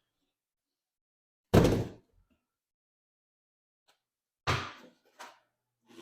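Parts and packaging being handled and set down while unpacking: a loud thud about one and a half seconds in, then another about three seconds later, followed by a few lighter knocks.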